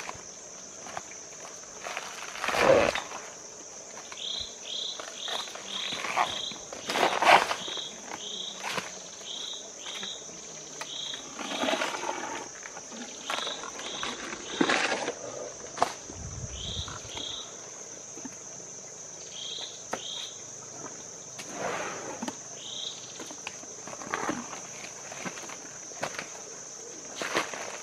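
A steady high-pitched insect drone, with runs of short high chirps. Over it come irregular crunching and snapping as an Asian elephant breaks and chews banana stalks, with the loudest snaps about 3 and 7 seconds in.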